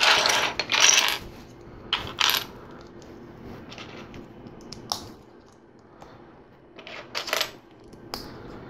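Loose plastic LEGO pieces clattering and clicking against each other and the tabletop as hands pick through a pile. The loudest clatter comes at the start, with smaller bursts of clicks about two seconds in and again near the end.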